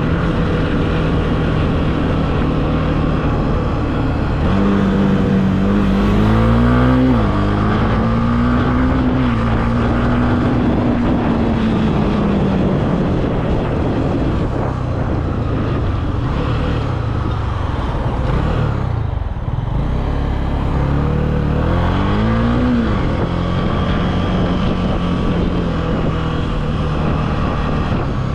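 Honda CB300F's single-cylinder engine under way: the revs climb about five seconds in to a gear change near seven seconds, hold at a steady cruise, then fall. Near twenty seconds the revs dip, climb again to another shift at about twenty-three seconds, and settle into a steady run.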